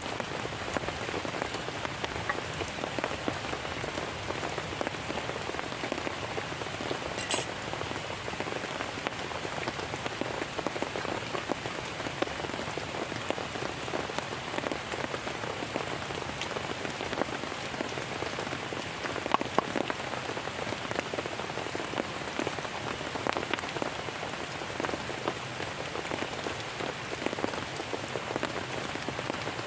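Heavy rain falling steadily, a dense even patter of drops hitting a surface. A single brief sharp click comes about seven seconds in.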